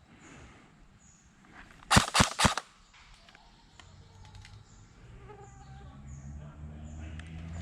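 An airsoft gun fires three quick shots, all within about half a second.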